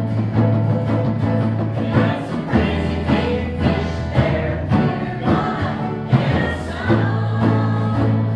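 Live group singing by a small mixed choir, accompanied by acoustic guitar and banjo over a steady bass line whose notes change every few seconds.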